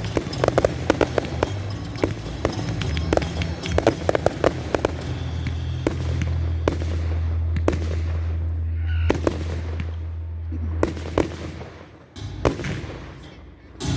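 Fireworks display: a rapid run of sharp crackling bangs for the first several seconds, thinning to scattered single bangs toward the end.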